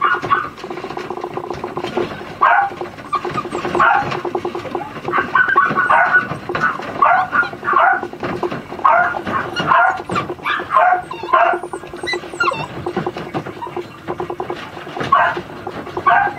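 Miniature schnauzer puppies yapping in short, high-pitched barks and whines, one after another at an uneven pace, over a steady low buzz.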